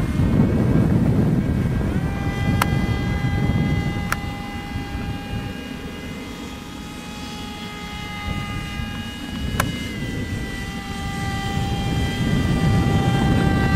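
Small RC flying-wing model airplane's motor whining overhead, a steady high pitch with several overtones that comes in about two seconds in. It sits over a low rumble of wind on the microphone, and there are three sharp clicks.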